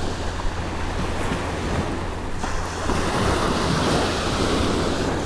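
Ocean surf washing onto the beach, with wind rumbling on the microphone. The rushing noise swells a little about halfway through.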